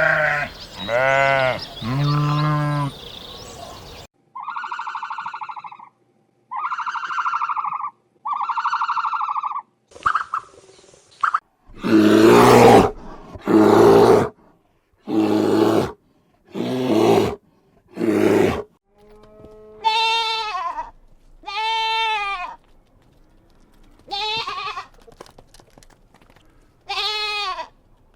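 A run of separate animal calls with short silences between them. Wavering bleat-like calls come at the start and again in the last third, three matching tonal cries follow in the early part, and a series of louder, harsher calls falls in the middle.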